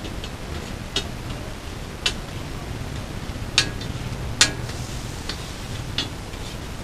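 Metal spatula clinking and tapping on a large flat tawa griddle: a handful of sharp metallic clinks at uneven intervals, the loudest two near the middle, over a steady background hiss.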